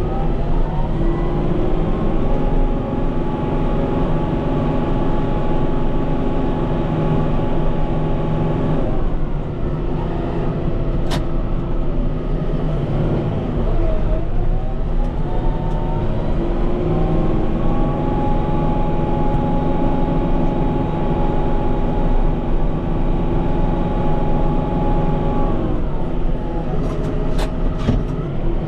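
Kubota M5-091 tractor's diesel engine working, revving up and holding steady for several seconds before dropping back, then revving up and holding again before dropping near the end. A single sharp click comes in the middle.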